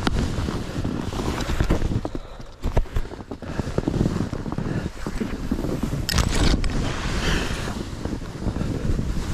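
Wind buffeting the microphone in a loud, low rumble. It drops away briefly about two to three seconds in, then comes back.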